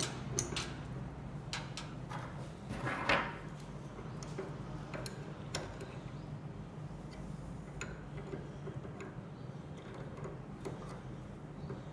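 Scattered light clicks and taps as the handle is fitted back onto a manual string hopper machine, over a steady low hum.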